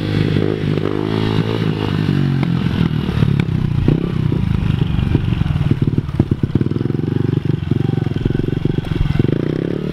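A 110cc mini dirt bike engine running, its pitch rising and falling over the first two seconds as the throttle changes. From about four seconds in it runs lower and steadier, with a rapid, uneven clatter over the engine note.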